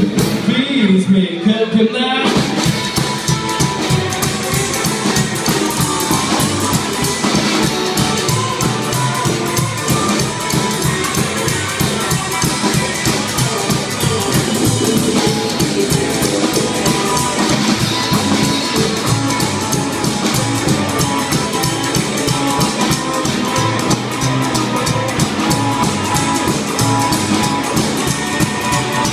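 A live rockabilly trio playing on hollow-body electric guitar, upright double bass and drum kit. A voice is heard over sparse backing at first, then about two seconds in the full band comes in with a steady drum beat.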